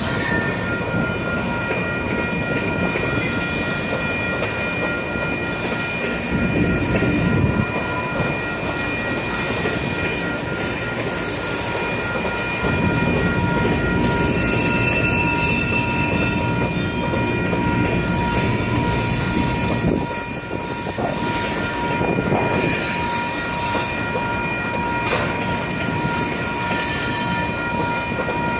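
Grain hopper cars rolling slowly by on a curve, their steel wheels squealing against the rail in several steady high-pitched tones over the rumble and clatter of the wheels.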